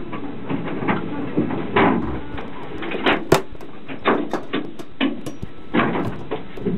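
Irregular knocks and rattles inside a race car's stripped, roll-caged cockpit, over a steady rumbling noise.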